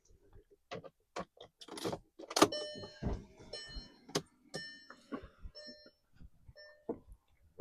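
Clicks and knocks from someone in a car's cabin: a 2012 VW Tiguan's door, keys and switches being handled. About two and a half seconds in, a short electronic chime tone starts repeating several times. A loud thump comes right at the end.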